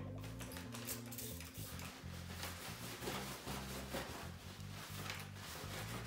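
Soft background music with a low bass line that steps from note to note.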